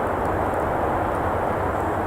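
Steady rushing noise of road traffic, with a few faint crackles from the campfire.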